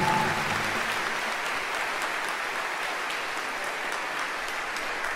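Theatre audience applauding. The last notes of a piece of music die away right at the start.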